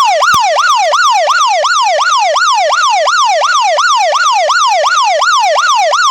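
Smartphone anti-theft alarm app sounding through the phone's speaker: a loud electronic siren that jumps up and slides down in pitch about three times a second, without a break.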